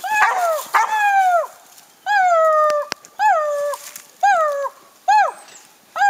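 Catahoula dog barking treed at a raccoon: a steady string of about six drawn-out barks, roughly one a second, each falling in pitch. The barking is the sign that the dog has the raccoon treed. A sharp click comes about three seconds in.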